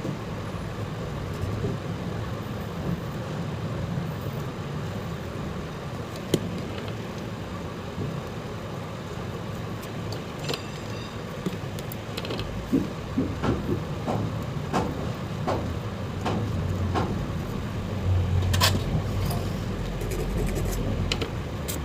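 Steady low rumble of road traffic in the background, with scattered small clicks and taps of metal tools working the legs of a charging jack.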